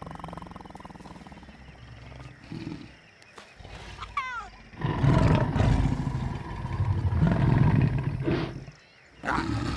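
Lions growling, loudest and fullest from about five seconds in until past eight seconds, with another burst near the end. A short high, wavering cry about four seconds in.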